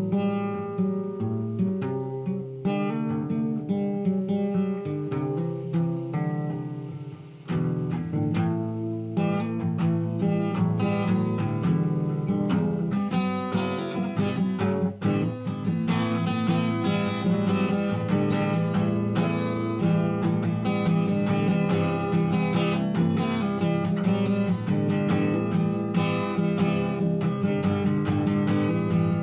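Acoustic guitar music, chords strummed in a steady rhythm, with a short drop about seven seconds in before the playing grows fuller and busier.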